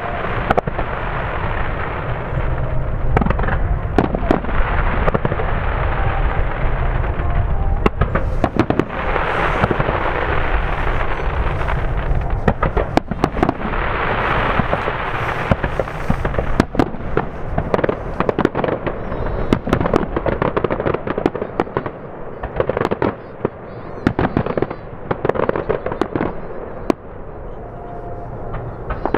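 Fireworks display: a dense barrage of aerial shells bursting, with many sharp bangs and crackling over a steady rumble. The bursts thin out and come more spaced in the last few seconds.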